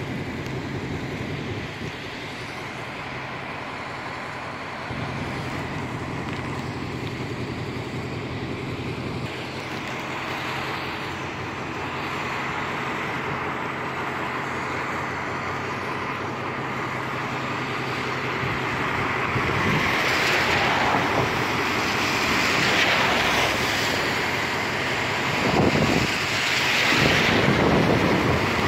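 Road traffic passing close by on a wet road: tyre hiss swells and fades several times in the second half. Underneath it runs a steady low engine hum.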